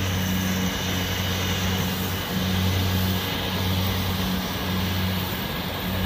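Kubota DC70-series rice combine harvester running steadily at working speed while it cuts and threshes standing rice: a steady diesel engine hum over broad machine noise, dipping briefly about two seconds in.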